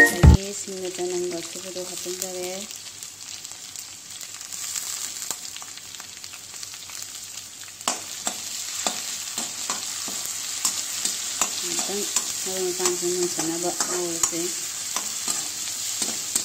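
Oil sizzling steadily in a metal kadai as chopped greens fry. From about halfway through, a slotted metal spatula stirs, clicking and scraping against the pan. A faint pitched hum comes and goes twice.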